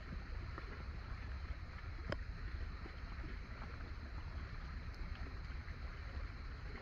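Small waves lapping against a kayak hull as it drifts on a lake, with a steady low wind rumble on the microphone and a faint tap about two seconds in.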